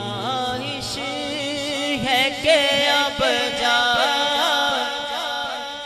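A man singing a naat into a microphone: a long, wordless, ornamented line with wavering vibrato, over a steady low vocal drone.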